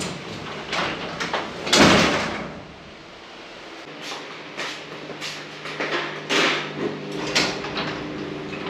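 Garage door clattering and clanking as it moves along its track, being run after repair. A steady low hum comes in about four seconds in, under further clacks.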